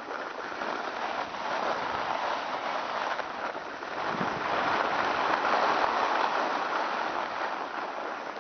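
Skis hissing and scraping over groomed snow on a downhill run, mixed with wind rushing past the microphone, swelling a little about halfway through.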